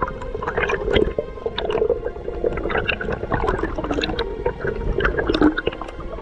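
Underwater ambience heard through the camera underwater: a dense, irregular crackle of short clicks over water noise, with a wavering hum underneath.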